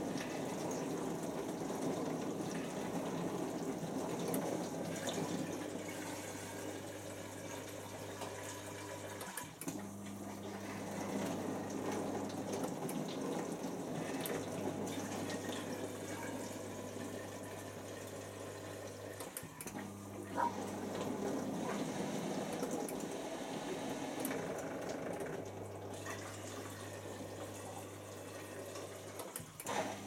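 Bosch Classixx dishwasher running mid-cycle: water spraying and sloshing inside the tub over a low pump hum. About every ten seconds the hum drops out briefly and comes back at a different pitch.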